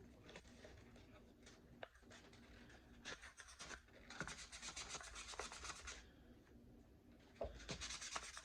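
Faint abrasive rubbing of a Glock pistol barrel by hand, in bursts of quick back-and-forth strokes, the longest lasting about two seconds in the middle. The barrel's black finish is being scrubbed off to polish the bare metal.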